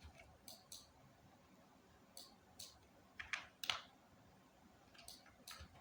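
Faint, scattered clicks of a computer mouse and keyboard, about nine in all, irregularly spaced.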